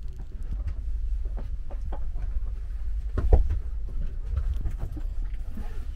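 Steady low rumble inside a TGV passenger carriage, with scattered light clicks and knocks and one louder knock a little past halfway.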